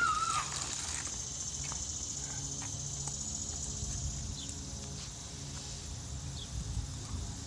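Insects buzzing steadily at a high pitch, fading a little past the middle, over a faint low steady hum. A short high-pitched call sounds at the very start.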